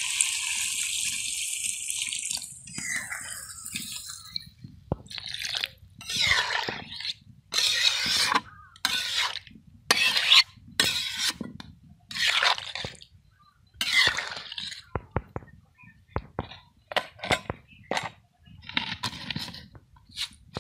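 Water poured from a bowl into an iron wok of giant taro (mann kochu) curry, a steady gushing splash that stops about two seconds in. Then a metal spatula stirs through the watery curry in a long run of short swishing, splashing strokes, with a few light clicks near the end.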